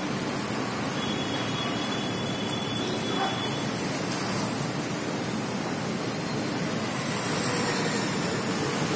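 Steady road traffic noise, an even hiss and rumble with no single event standing out.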